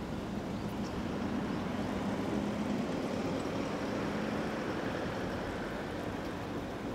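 Steady outdoor background noise, a low even rumble with no distinct events.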